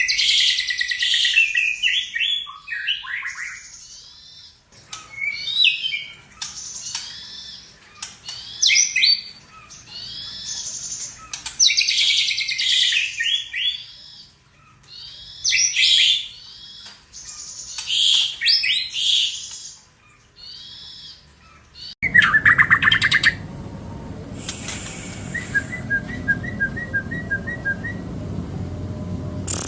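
White-rumped shama (murai batu) singing loud, varied phrases of whistles and rapid chirps with short pauses between them, its song laced with mimicked calls of other birds. About 22 seconds in the song gives way to a loud low rumbling noise, with a brief call and a quick run of chirps over it.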